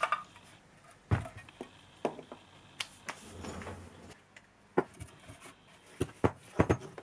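Handling noise: a rusty metal car heater blower is turned over and set down on a wooden workbench, giving a series of irregular knocks and clunks, with a brief rustle a little past the middle.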